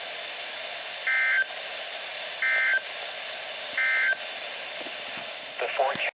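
Emergency Alert System end-of-message signal on NOAA Weather Radio: three short, identical buzzy data bursts about a second and a half apart, over steady radio hiss. A brief sound comes just before the audio cuts off at the end.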